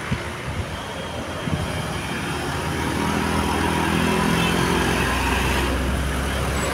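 Heavy road-vehicle engine, such as a bus, running close by amid traffic noise. Its low drone grows louder about three seconds in and holds steady; no horn sounds.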